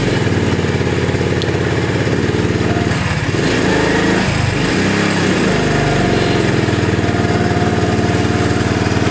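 Single-cylinder four-stroke engine of a CD70 motorcycle running in first gear, driving the spinning rear wheel through the chain, with its beat slowing and picking up a couple of times around the middle as the wheel is loaded by the rear brake. The drive chain runs without its tick-tick, now that a worn chain lock (master link) has been replaced.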